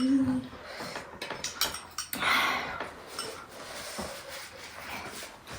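Eating sounds at a table: mouth noises of chewing and sipping, with scattered light clicks of utensils against dishes.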